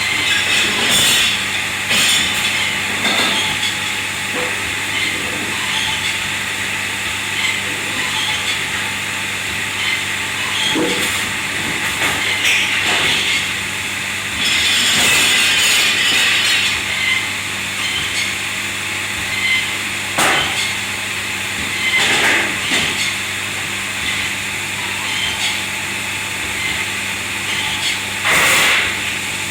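Commercial kitchen ambience: machinery humming and hissing steadily, with irregular clatters and knocks from about a dozen short impacts, the loudest near the middle and near the end.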